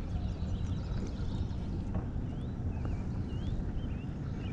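Wind rumbling on the microphone over open water, with a small bird chirping short, twisting notes in the background, clearest in the second half.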